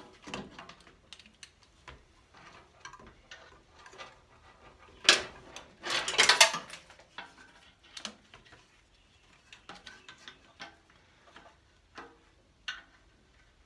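Electric thermo fan's plastic housing being handled and pushed into place against an aluminium radiator: scattered clicks and knocks, with a louder clatter about five seconds in and again around six seconds in.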